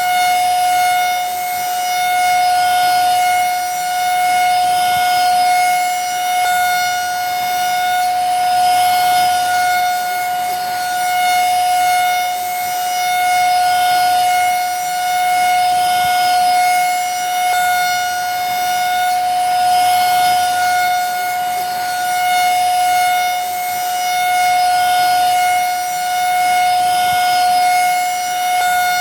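Vacuum cleaner motor running steadily: a high, unchanging whine over a hiss of rushing air, swelling and easing gently every couple of seconds.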